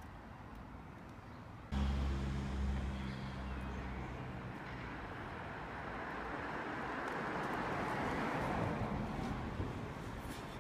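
A motor vehicle going by on the road: a low engine hum comes in suddenly about two seconds in, then tyre and road noise swells, peaks and fades.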